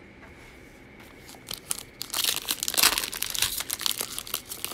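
A trading-card pack wrapper being torn open and crinkled, a dense crackle that starts about a second and a half in and stops near the end.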